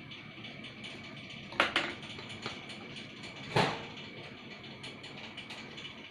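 Two sharp knocks of hard parts being handled during a water pump teardown: a quick double knock about one and a half seconds in, and a single knock two seconds later. Under them runs a steady low hiss with a faint high tone.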